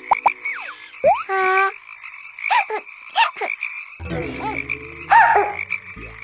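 Cartoon frogs croaking: many short calls, some rising and falling in pitch, with a few quick upward chirps, over a steady high tone.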